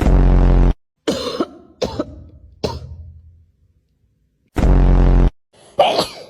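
A person coughing loudly and repeatedly: a long harsh cough, three short sharp coughs, then another long harsh cough and a shorter one near the end.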